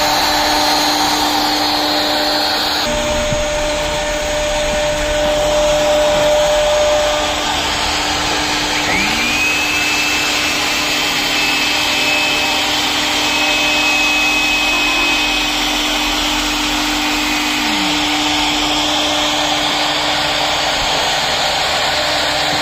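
CNC router carving wood, its spindle motor and dust extraction running with a steady loud whir. A high whine rises about nine seconds in and holds for several seconds, and the sound shifts abruptly about three seconds in.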